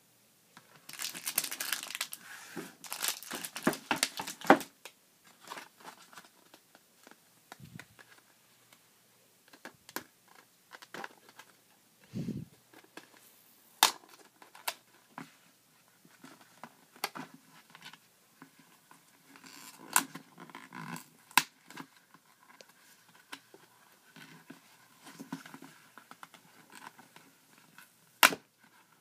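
Clear plastic blister packs of eraser kits crinkling and crackling as they are handled, densely for the first few seconds, then scattered taps and a few sharp clicks as the card-backed packs are turned over.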